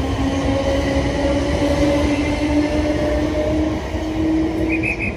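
Electric train running, its traction motors whining in a tone that rises slowly in pitch as it accelerates, over a steady rumble. Near the end come about four short high beeps.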